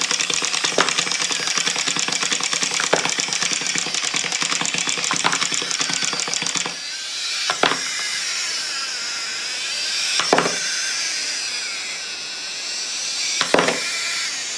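Wind-up toys, including a set of chattering teeth, running on a tabletop: a fast, even mechanical ticking and clattering for about the first seven seconds, then a softer whirr broken by three sharp clicks.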